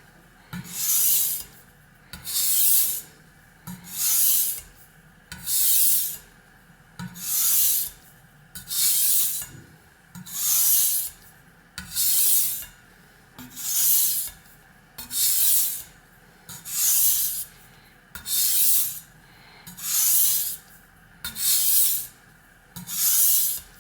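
A kitchen knife stroked back and forth across the wet, muddy 1000-grit side of a Suehiro SKG-38 waterstone, making a gritty scraping hiss. The strokes come evenly, about one every second and a half, alternating sides of the blade.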